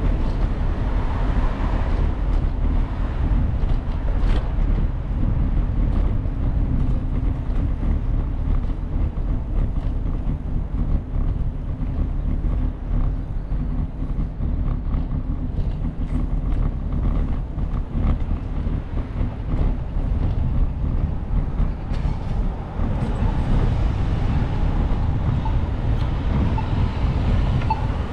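Steady wind rumble on the microphone and road noise from riding, with no clear engine tone standing out.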